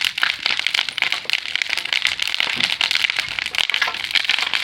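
A large bonfire of demolition timber and debris crackling: a dense, unbroken run of sharp snaps and pops.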